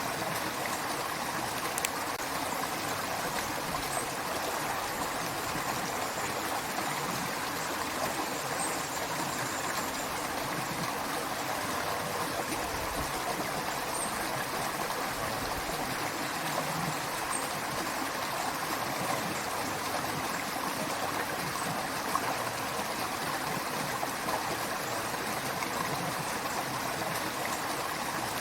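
A creek running steadily over rocks, a continuous rush of flowing water with some trickling and gurgling.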